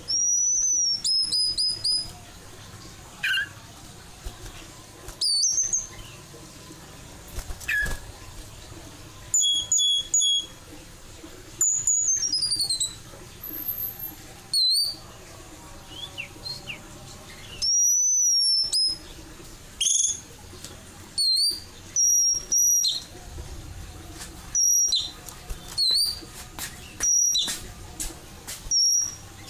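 White-crowned forktail giving a series of high, thin whistled calls: short notes, many sweeping up or down in pitch, repeated every second or two with short pauses between them.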